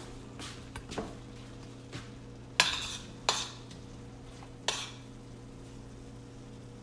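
Serving spoon scraping and clinking against a stainless steel pan as sesame chicken is scooped out. There are several separate clinks, the loudest near the middle, over a steady low hum.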